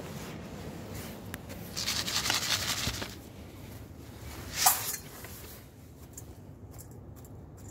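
Dry rustling and crackling in wood-shaving bedding for about a second, then one short, sharp noisy burst a little past the middle.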